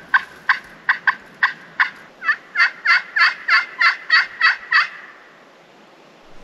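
A hunter's turkey call sounding a loud series of hen-turkey notes to strike up a gobble. A few short, sharp cuts come first, then a run of two-tone yelps at about three a second, which stops about five seconds in.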